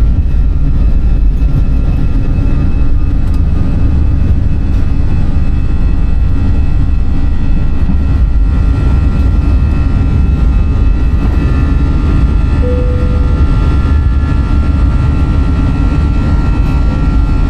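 Airplane cabin noise: a loud, steady engine and airflow drone with faint steady tones above it. A brief short tone sounds about twelve seconds in.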